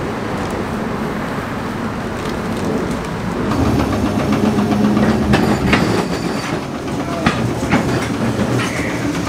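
A Perley A. Thomas 900 Series streetcar rolling in along the rails toward a stop. It grows louder from about three and a half seconds in, with a steady motor hum and several clacks of its wheels on the track.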